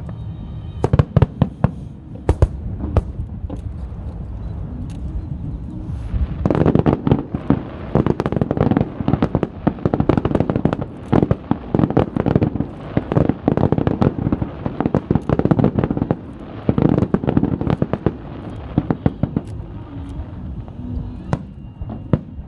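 Fireworks going off: scattered sharp bangs, then about six seconds in a dense, rapid crackling barrage of pops that lasts some fourteen seconds before thinning back to separate bangs.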